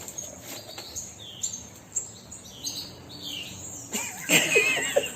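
A parrot, likely the macaw, giving a series of short, high, falling chirps, followed about four seconds in by a louder, wavering vocal sound.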